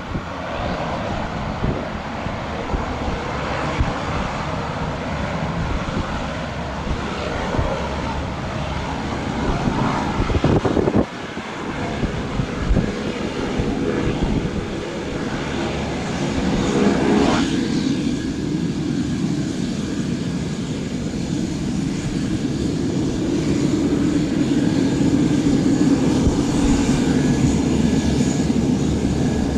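Beechcraft 1900 twin turboprop taxiing, its two Pratt & Whitney PT6A engines and propellers running at low power with a steady drone and hiss. The sound dips briefly about eleven seconds in, changes tone around seventeen seconds, then grows louder as the aircraft comes close.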